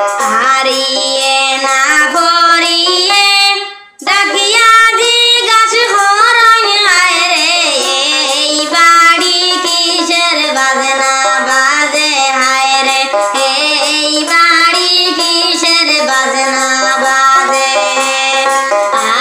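Sylheti wedding song: a woman singing a wavering melody over instrumental accompaniment. The music drops out for a moment about four seconds in.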